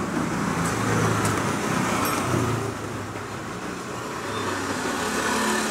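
Motor vehicle engine running with a steady low drone, dipping a little midway and swelling again near the end.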